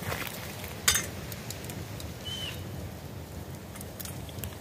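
Scattered clicks and clinks of a metal pan and a roti being handled over an open wood fire, with one sharp click about a second in.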